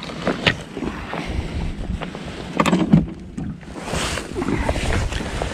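Wind buffeting the microphone over water lapping at a boat's side, with a few sharp splashes and knocks as a hooked fish is brought to the landing net.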